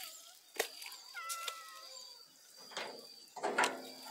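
Farm animals calling: a short high call about a second in, then a louder, longer call starting near the end, amid scattered light clicks.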